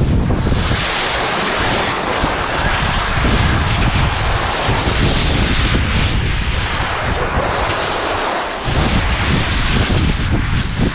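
Wind buffeting a skier's action-camera microphone at speed, a heavy rumble, over the hiss and scrape of skis sliding and carving on firm snow. The hiss swells a few times as the skis turn.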